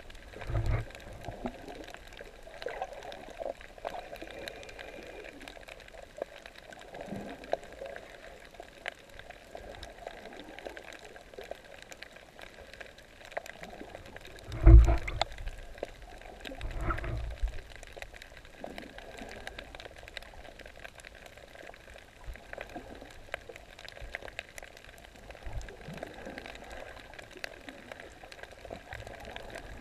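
Muffled underwater sound of a camera held below the surface while snorkelling: steady low gurgling and bubbling of water, with a few dull thumps, the loudest about halfway through.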